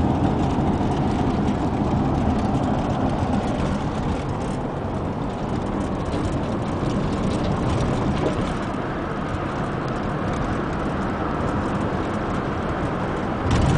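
Steady road noise inside a moving car: tyre and engine rumble while driving across a highway bridge. The noise swells briefly near the end.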